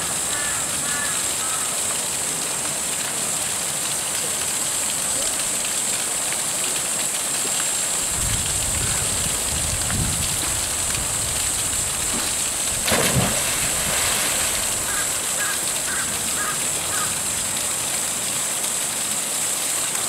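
Steady rushing hiss of a small waterfall and stream falling into a rocky pool, with a bird giving a few short chirps near the start and again about three quarters of the way through. A short louder burst of noise comes about two thirds of the way in.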